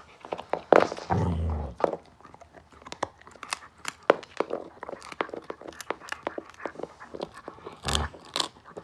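Samoyed gnawing on a bone, with repeated sharp crunches and clicks of teeth on bone. A short low growl comes about a second in and another near the end, when the dog bares its teeth at being disturbed over the bone.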